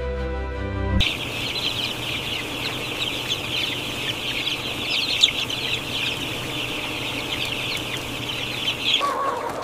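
Many broiler chicks peeping at once, a dense high-pitched chatter. Music cuts off about a second in, and lower-pitched chicken calls take over near the end.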